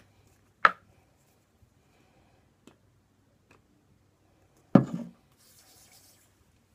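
Plastic pump bottle clicking as it is pressed, with faint ticks of handling between; the second press, with a short squelch, dispenses product into a palm. Hands then rub together briefly with a soft hiss.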